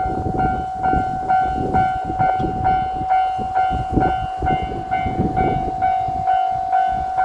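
Japanese railroad crossing warning bell ringing its steady electronic 'kan-kan', a little over two strikes a second. Under it a diesel train passes over the crossing with uneven rumbling and wheel clatter, which thins out toward the end.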